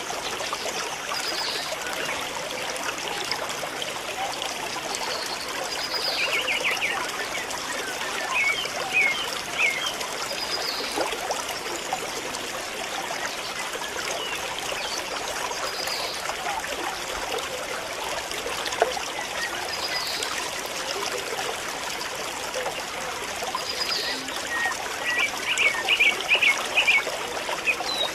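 Steady outdoor hiss like trickling water, with a short high bird call repeating about every four seconds and, twice, a quick run of chirps.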